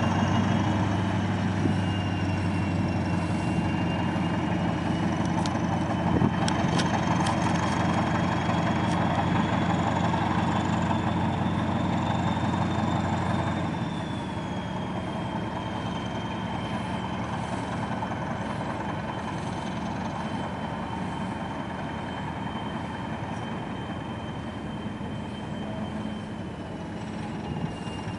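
Diesel engine of an SM42 shunting locomotive working as it pushes a loaded train of open wagons: a steady low drone with a thin high whine above it and a few clicks early in. About 14 seconds in, the engine note drops and grows quieter.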